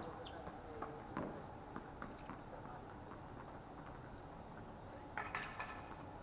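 Tennis balls struck by rackets during a volley exchange: sharp pocks, spaced out around a second in, then a quick run of hits near the end.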